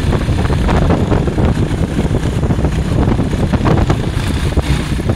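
Motorbike running at riding speed, its engine blending with wind buffeting the microphone in a loud, steady rumble.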